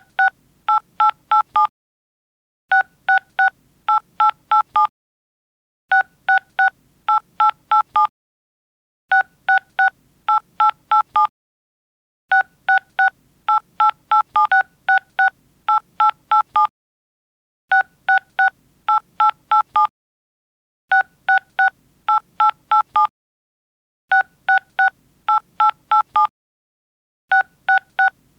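Telephone keypad dialing tones (DTMF): quick runs of about eight short two-tone beeps, each beep a different key, with brief silences between runs, repeating about every three seconds.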